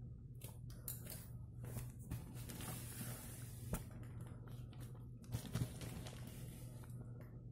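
Plastic wrapping and packing tape on a shipping parcel crinkling and rustling irregularly as hands handle it, with a couple of sharp taps in the middle and a steady low hum underneath.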